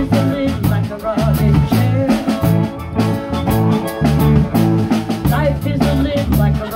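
Live blues band playing a steady groove: electric bass and drum kit under electric and acoustic-electric guitars, with a harmonica played cupped into a microphone.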